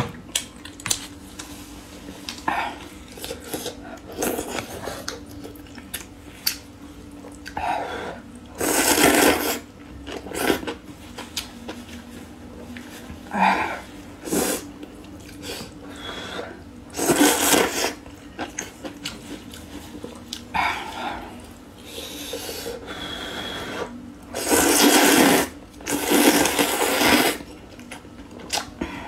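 Slurping of rice noodles from spicy soup: a few loud slurps about a second long each, with quieter chewing and mouth clicks between.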